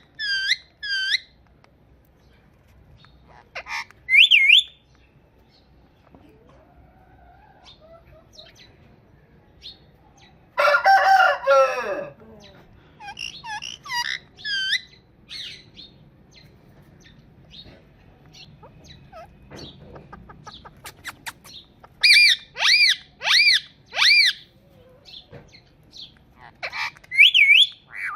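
Indian ringneck parrot giving short, shrill arched screeches in groups, including a run of four evenly spaced calls near the end. About eleven seconds in, a single longer, louder crow like a rooster's.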